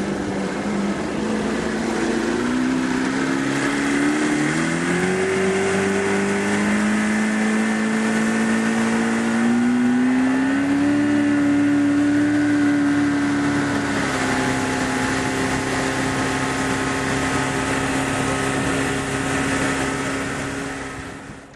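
Motorboat engine running under way, its pitch climbing in steps as the throttle is opened, settling a little lower after about fourteen seconds, then dropping away sharply near the end.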